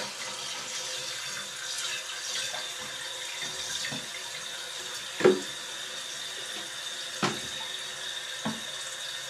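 Toilet tank refilling through a newly installed float-type fill valve: a steady rush of water hissing into the tank, with a faint steady high whistle. A few light knocks break in, the loudest about five seconds in.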